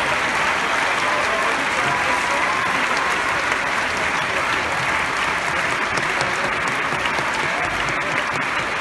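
Theatre audience applauding steadily: dense, unbroken clapping in a sustained ovation that keeps calling the dancers back for more bows.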